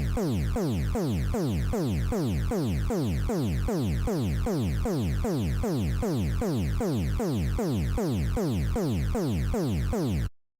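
Electronic emergency-alert alarm tone: a rapid run of falling pitch sweeps, about three a second, each buzzy and rich in overtones. It cuts off suddenly near the end.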